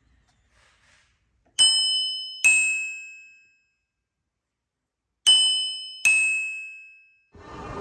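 Twin brass bicycle bell on a handlebar, its two thumb levers flicked one after the other: a higher ding, then a lower dong, each ringing out and fading over about a second. The ding-dong is played twice.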